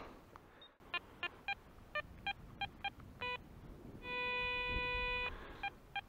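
Metal detector beeping: short pitched beeps of varying pitch as the coil sweeps the sand, then one steady tone lasting just over a second, about four seconds in. The steady tone is a target signal that the detectorist judges to be very deep.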